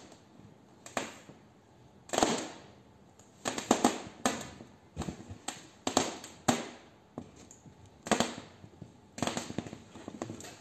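Foil helium balloon crinkling and crackling under the fingers as it is pressed and handled, in short irregular clusters of sharp crackles with pauses between.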